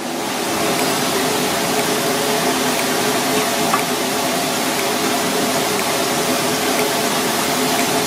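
Pot of parrotfish broth simmering on a gas stove: a steady rushing hiss with a few faint ticks.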